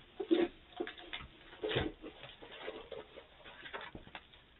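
Rustling, crinkling and light knocks of a rolled diamond painting canvas being handled and unrolled, in short irregular bursts with two louder knocks, one near the start and one just under two seconds in.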